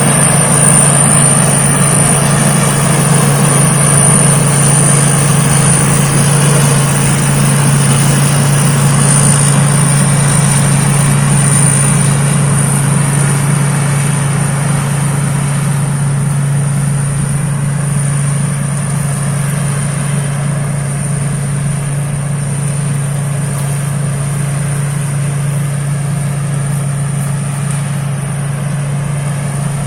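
Rice combine harvester running steadily: a continuous low engine hum with a constant high-pitched whine above it, easing off slightly about halfway through.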